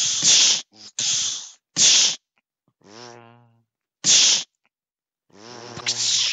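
Lightsaber swings and clashes imitated by a person's mouth: a run of short, sharp hissed "pssh" bursts, a low hummed buzz about three seconds in, and a longer hiss mixed with humming near the end.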